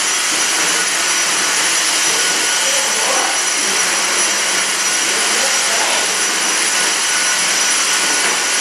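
Stick vacuum cleaner running steadily: a loud, even rushing hiss with a constant high whine from its motor.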